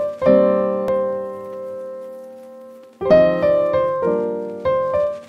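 Background piano music: a chord struck and left to ring and fade for nearly three seconds, then a quicker run of notes.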